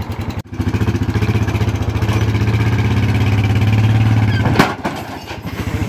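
Quad bike (ATV) engine running under throttle for about four seconds, with a slight rise in revs. A sharp knock comes near the end, and the engine then drops back to a quieter idle.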